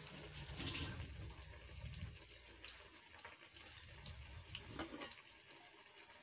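Batter-dipped potato slices deep-frying in a kadhai of hot oil: a faint, steady sizzle with a few small crackles.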